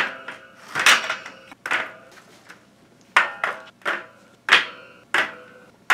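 Parts of a stacking shoe rack being set down and fitted together on a tile floor: a run of sharp clacks, each with a brief ring, roughly one a second.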